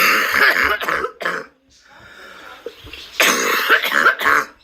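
A person coughing in two fits: a run of harsh coughs in the first second and a half, then a second run starting about three seconds in.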